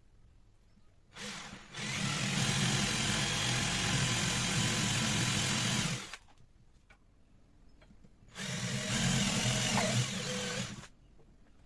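An electric power tool running in two bursts: one of about five seconds starting a second in, then a shorter one of about two and a half seconds near the end.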